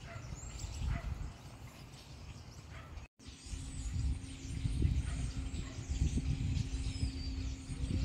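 Scattered bird chirps and calls over an uneven low rumble. The sound drops out briefly about three seconds in, and after that a steady low hum runs underneath.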